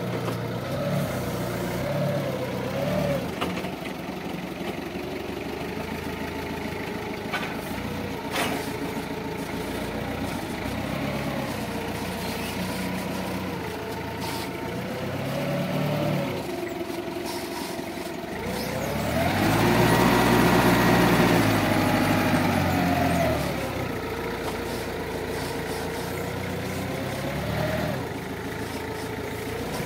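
Linde forklift engine running and changing speed as the truck manoeuvres, with its pitch wavering up and down. About two-thirds of the way in it revs up for a few seconds, then drops back. There are a couple of short clicks along the way.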